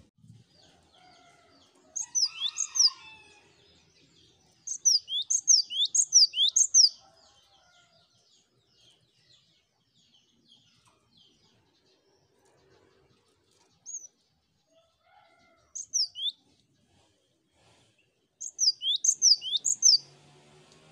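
Cinereous tit (gelatik batu) singing: sharp, high whistled notes that sweep downward, repeated about three a second in several short phrases with pauses between.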